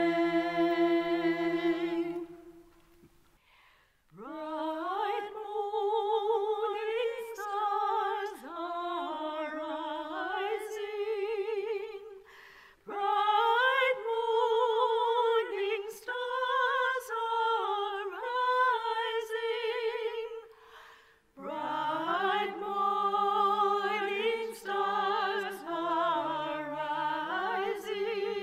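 Unaccompanied singing: a voice with vibrato in long sung phrases, pausing briefly about 3, 12 and 21 seconds in.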